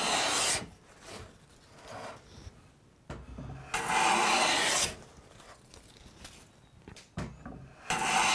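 Stanley Bedrock No. 8 joiner plane with a freshly honed iron, pushed along the edge of a softwood 2x6 in long hissing strokes of about a second each, taking full-width, full-length shavings. There are three strokes, about four seconds apart, with a light knock before each of the later two.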